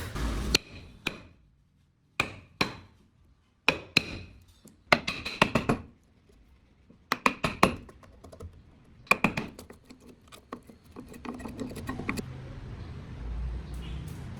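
Sharp taps and knocks of hand woodworking, coming in irregular clusters with short pauses between them; some strikes ring briefly.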